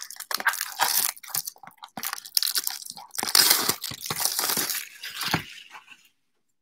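Plastic shrink wrap being torn and pulled off a trading-card box, a run of irregular crinkling and crackling that stops suddenly near the end.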